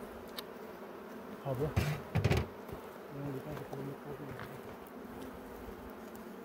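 Honeybees buzzing in an open hive, a steady hum.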